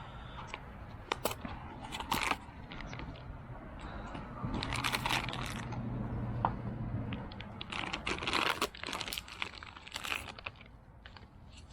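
Hands handling fuel pump parts: crinkling and rustling with scattered sharp clicks and knocks, coming in bursts about halfway through and again towards the end.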